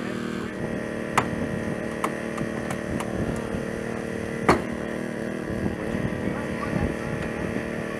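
An engine running steadily, with several sharp clicks or knocks over it, the loudest about four and a half seconds in.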